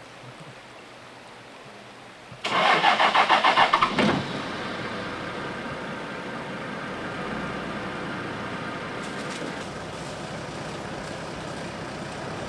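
A vehicle engine is cranked by its starter, a loud rapid run of pulses lasting under two seconds. It then catches and settles into running steadily.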